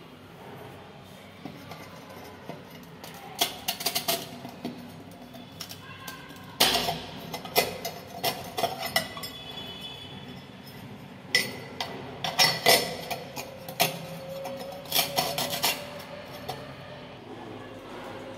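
Metal floor-drain grate being handled in its tiled recess: four clusters of sharp metallic clinks and rattles as it is lifted out and set back.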